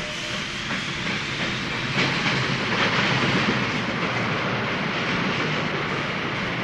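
Electronic keyboard's train sound effect: a steady noisy rumble of a train running, with a few faint clacks.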